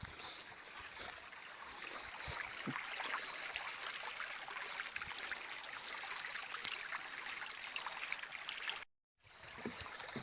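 A forest beck running over stones, a steady rushing trickle of water. It breaks off for a moment of dead silence near the end, then carries on.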